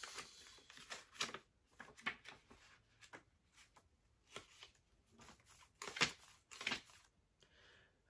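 Pages of a small paperback book being leafed through: faint, scattered paper flicks and rustles, with a couple of sharper flicks about six seconds in.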